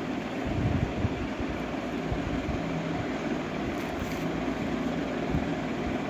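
Steady low background rumble and hiss, with a faint hum through the middle.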